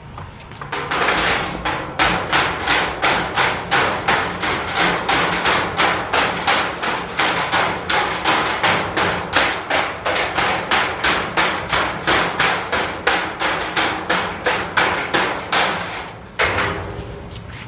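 A steady run of sharp knocking or banging blows, about three a second, starting about a second in and stopping near the end.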